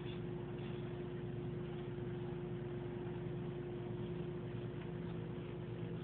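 Steady mechanical hum with one constant tone, unchanging throughout.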